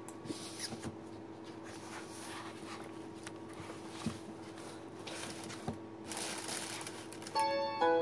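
Faint rustling and a few soft clicks over a steady low hum, then about seven seconds in an instrumental backing track starts with clear, bell-like keyboard notes.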